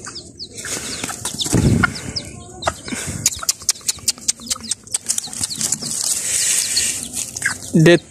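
A hen flapping her wings and scuffling on concrete among chicks, with many short clicks and a thud about a second and a half in. Chicks peep in short falling chirps throughout. There is a brief low call near the end. The hen is turning on the chicks.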